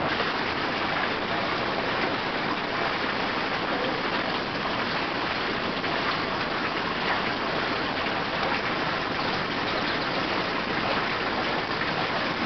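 A steady, even rushing noise, like running water, with no change throughout.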